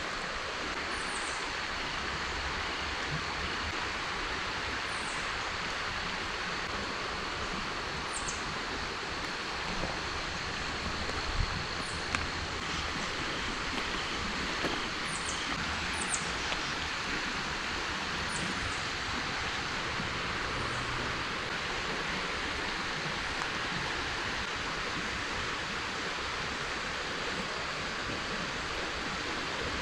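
Shallow river water running steadily over a gravel riffle. A few short, high, falling chirps come through it.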